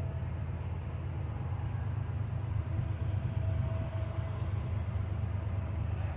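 Loaded coal freight train rolling past with a steady, heavy low rumble, with a faint tone riding above it.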